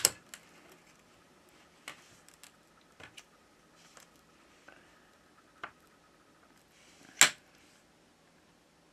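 Sparse light clicks and taps from a suction cup and a thin metal pry tool handled against a phone's glass back cover, with one sharper click about seven seconds in.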